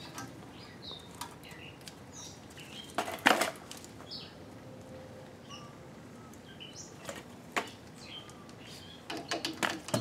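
Metal hand tools knocking and clicking against brake hardware during caliper refitting, with the loudest clatter about three seconds in and a run of quick clicks near the end. Small birds chirp on and off in the background.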